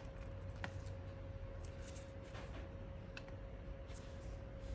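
Faint clicks and light plastic handling of wire connectors being plugged into a refrigerator control-board test kit, with a sharper click near the end, over a faint steady electrical hum.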